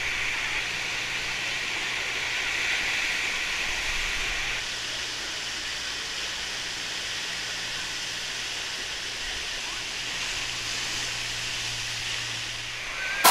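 Steady rushing of water pouring over a FlowRider wave machine, with a low steady hum underneath; the rush dips slightly about four and a half seconds in.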